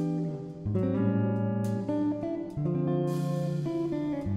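Background music led by guitar, with held notes and chord changes about every second.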